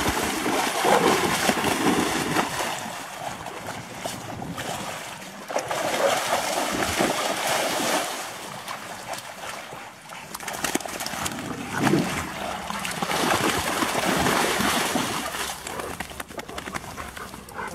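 Several dogs splashing and wrestling through shallow water, the water sloshing and splattering, louder in stretches.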